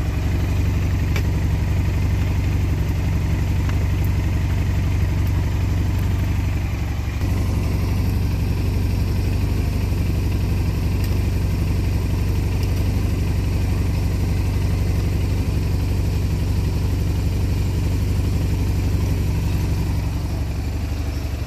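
Honda Silverwing scooter's engine idling steadily, with a few light clicks of tools being handled.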